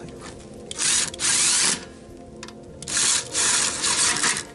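Cordless drill-driver spinning a socket to run in the scooter's muffler mounting bolts, in two bursts, the second one longer.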